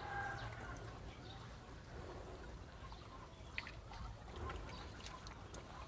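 Faint trickling of water, with a few light clicks.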